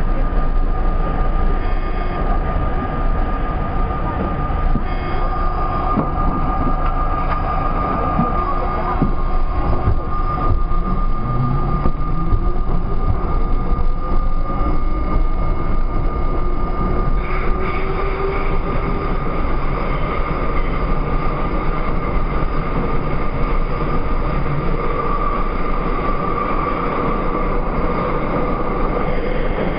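R32 subway train running through a tunnel, heard from inside the car: a steady, loud rumble of wheels on track with a held high tone. About a third of the way in, a tone rises in pitch.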